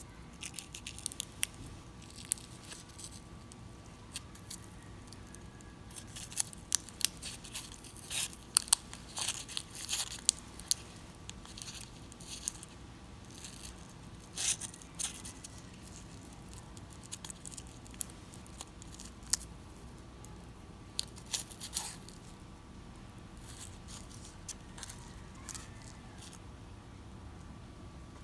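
Paper cupcake liner crinkling and tearing as fingers peel it away from a crumble-topped cupcake: irregular sharp crackles, busiest in the first third and thinning out near the end.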